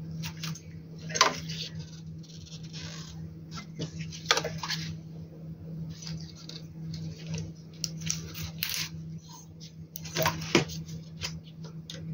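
Irregular clicks, taps and rustles of circuit boards and plastic parts being handled while an inverter's MPPT board is swapped, with a few sharper clicks about a second in, about four seconds in and near the end. A steady low hum runs underneath.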